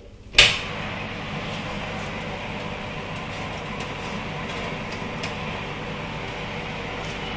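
Electric fan oven running with its door open, a steady hum from the convection fan. A single sharp knock about half a second in, with a few faint clinks later as the oven glove reaches in.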